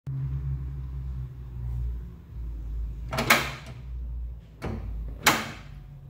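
Door lock of a Nissan Patrol Y60's rear barn door latching on its striker as the door is swung shut: two loud metallic clunks about two seconds apart, with a lighter click just before the second. A low steady hum underneath stops at the second clunk.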